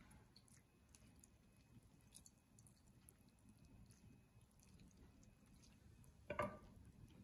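Faint wet squishing and soft ticks as boiled raw jackfruit pieces are pressed down with a slotted spoon in a steel mesh strainer, squeezing the water out. A short, louder clunk comes about six seconds in.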